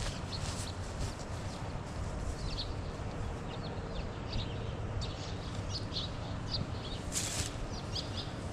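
Small birds chirping in short, repeated high calls over a steady low rumble of wind on the microphone; a brief rush of noise about seven seconds in.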